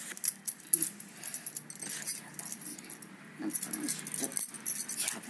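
Cardboard shipping box being opened by hand: flaps rustling and scraping, with paper crinkling inside, in a run of short crackly noises.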